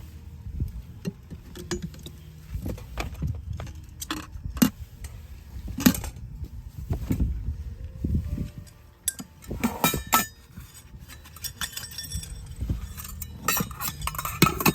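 Camping dishes and tableware clinking and knocking as they are handled and set down, in many short, irregular clinks that come thickest in two flurries, over a low steady rumble.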